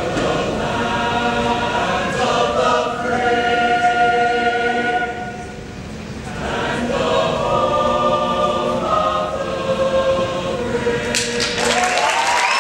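Mixed high school vocal ensemble singing a cappella in held chords, dipping softer for a moment about halfway through. Applause breaks in near the end as the last chord is held.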